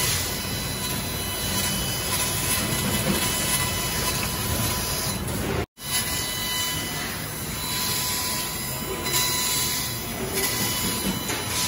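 CNC laser cutter cutting 6 mm steel plate: a steady hiss from the cutting head, with a steady high whine running under it. The sound cuts out for an instant just over halfway through.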